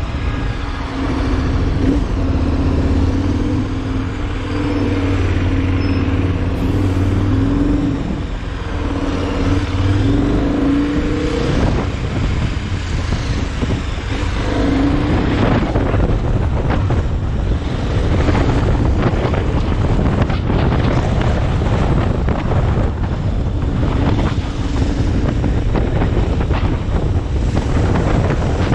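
A vehicle engine running on the move, its hum wavering in pitch for the first dozen seconds, under heavy wind noise rushing on the microphone that takes over for the rest.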